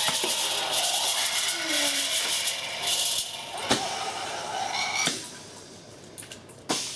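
Pneumatic Halloween scare prop going off: a loud hissing jet of air and fog for about three seconds, then three sharp knocks about a second and a half apart as the figure moves.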